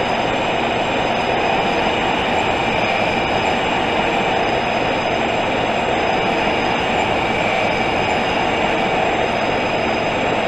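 Taipei Metro (MRT) train running at a steady speed: a constant rumble of wheels on rails, with a steady high-pitched motor whine made of several tones held over it.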